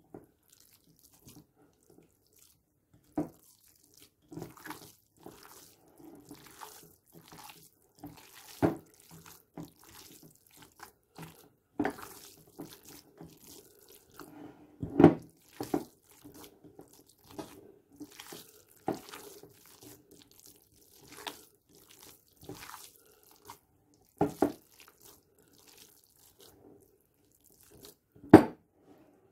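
Wet squelching and squishing of raw minced meat and rice filling being kneaded and squeezed by hand in a glass bowl, irregular, with several sharper knocks, the loudest about halfway through and just before the end.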